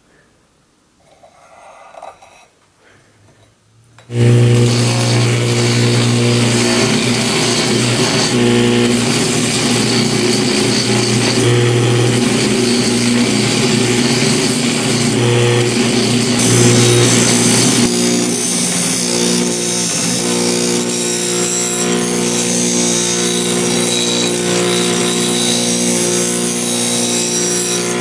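Abrasive disc spun by an electric motor grinding high-carbon railroad-spike steel, cutting a knife blade to its marked outline: a steady motor hum under a loud, continuous grinding hiss. It starts suddenly about four seconds in, after a few quiet seconds.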